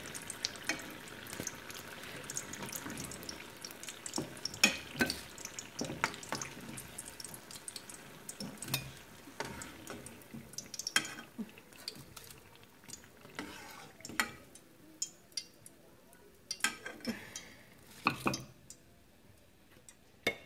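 Spring rolls sizzling in hot oil in a stainless steel frying pan, with a metal slotted spatula clinking and scraping against the pan as the fried rolls are lifted out. The sizzling dies away about halfway through, leaving scattered clinks of the spatula on the pan.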